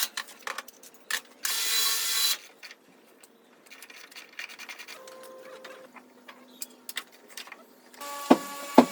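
Mechanical clicking and ratcheting, broken by a short, loud hiss about one and a half seconds in, with two sharp knocks near the end.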